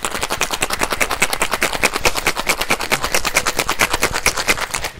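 Ice rattling hard inside a copper cocktail shaker shaken vigorously, a fast even run of knocks about eight a second that stops near the end. This is the wet shake with ice, after the dry shake, chilling and diluting the drink.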